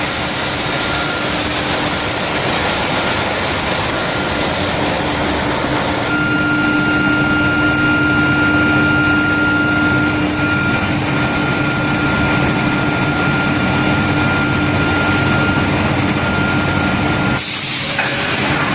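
Induction heating equipment running: a loud, steady industrial noise with a few steady tones held through it. The tones shift about six seconds in, and the sound changes abruptly near the end.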